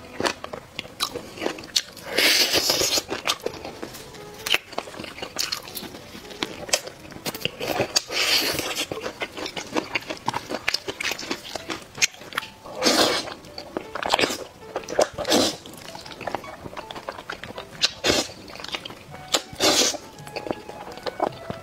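Close-miked eating: crunching bites of crispy fried chicken and wet chewing, with several loud noodle slurps.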